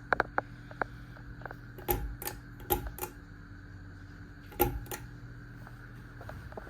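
Sonica flush-mount ceiling fan motor humming steadily on medium speed, with a scattering of sharp clicks and taps over the first few seconds.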